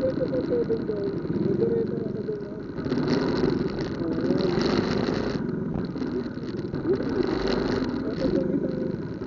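Congested street traffic: motorcycle and car engines running and idling at crawling speed, with people's voices mixed in. A brighter hiss swells from about three seconds in and cuts off suddenly around five seconds.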